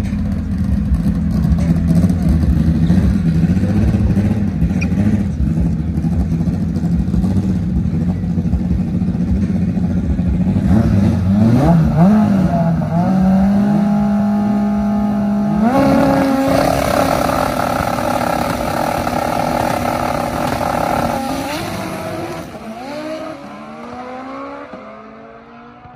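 Drag car's engine on a pass: a loud low drone for about ten seconds, then the pitch climbs in steps, holds high, and falls away and fades over the last few seconds as the car runs off down the track.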